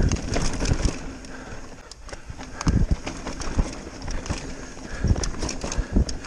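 Mountain bike running fast down a rough dirt trail: tyres rolling on dirt, the bike rattling and clicking, and heavy irregular thuds as it goes over bumps, the strongest a little under a second in, just under three seconds in, and near the end.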